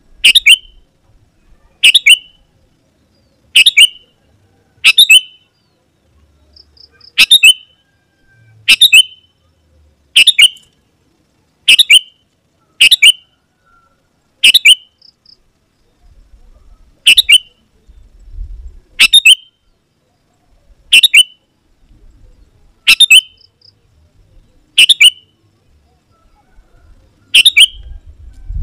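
Sooty-headed bulbul (kutilang) giving a short, sharp call over and over, about one every one to two seconds: a loud lure call meant to provoke wild bulbuls into answering.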